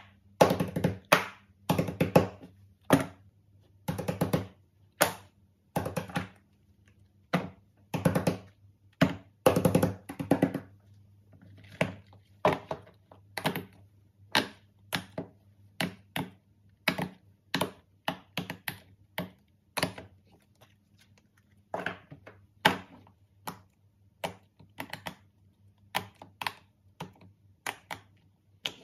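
Silicone pop-it fidget toys being pressed and set down on a table: a string of soft pops and taps, in quick runs during the first ten seconds, then single pops about a second apart.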